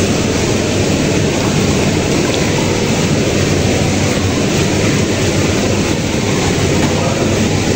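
Steady, loud noise of a moving vehicle, even throughout with no distinct events.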